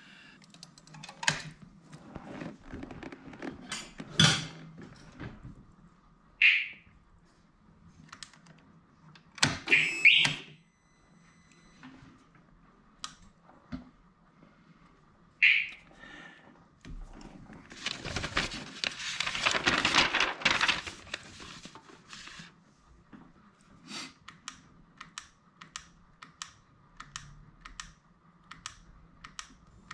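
Scattered clicks and knocks with two short high chirps, then a few seconds of rustling noise about two-thirds through. Near the end comes a run of light clicks, about two a second.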